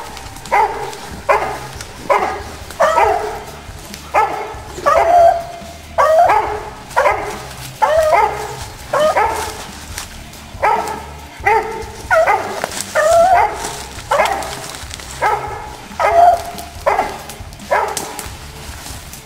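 Hunting dog baying steadily, about one and a half barks a second, some barks drawn out longer with a bending pitch: the bay of a dog holding a cornered ram.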